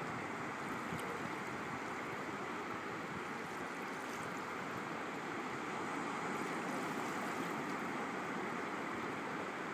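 Shallow water moving over a sandy bottom: a steady, even rushing wash with a few faint ticks.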